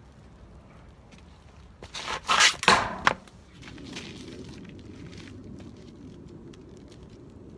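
A wad of cling wrap crushed underfoot on a concrete paver: a quick cluster of loud crinkling crackles about two seconds in, lasting just over a second, followed by a quiet steady background.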